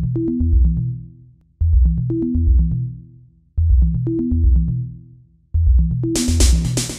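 Electronic background music: a drum-machine and bass phrase that repeats about every two seconds, with a bright hissing layer joining about six seconds in.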